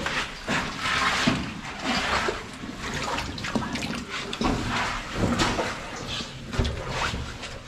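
Person wading through deep water in a flooded mine tunnel, the water sloshing and splashing in repeated surges about once a second.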